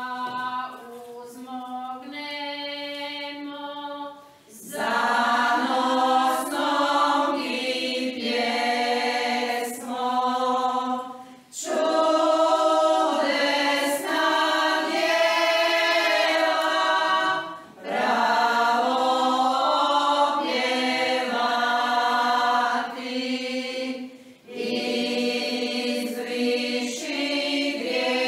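Women's folk choir singing a church hymn a cappella. One voice sings alone for the first few seconds, then the whole group joins in, singing in long phrases with short pauses for breath between them.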